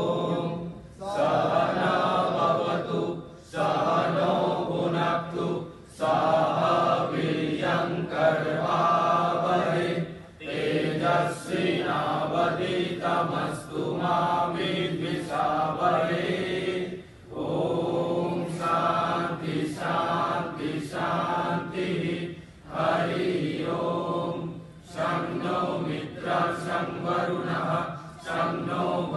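Voices chanting a devotional hymn or mantra together, in phrases a few seconds long with brief pauses between them.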